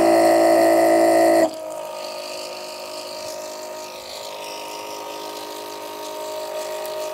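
Electric water pump motor humming steadily. About one and a half seconds in, the hum drops suddenly to a quieter, thinner hum that carries on.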